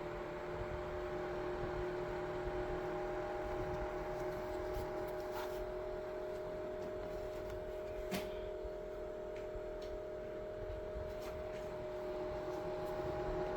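Small battery-powered motor of a homemade mini ceiling fan running with a steady hum, and a single click about eight seconds in.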